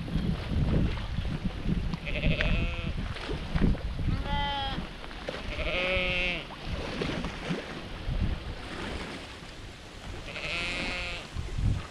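Sheep bleating: four separate bleats, each under a second long, spaced a few seconds apart, with a pause before the last one.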